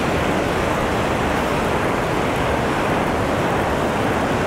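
Ocean surf breaking on a sandy beach: a steady, even wash of waves.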